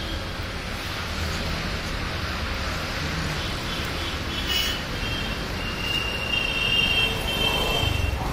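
Street traffic noise: a steady rumble of passing vehicles, with a high thin steady tone for about two seconds in the second half.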